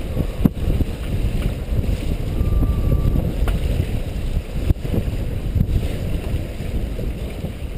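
Wind buffeting the microphone aboard a sailboat under way: a steady, loud low rumble, with a few short knocks.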